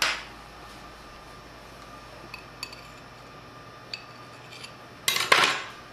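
Metal measuring spoon and knife clinking against small bowls as baking powder is scooped and levelled: a sharp clink at the start, a few light ticks, then a brief louder clatter about five seconds in.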